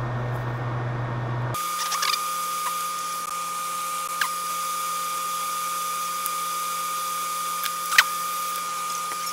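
Small electric blower on a microsoldering bench running with a steady whine. About a second and a half in, a low hum gives way abruptly to the higher whine, with a few faint ticks over it.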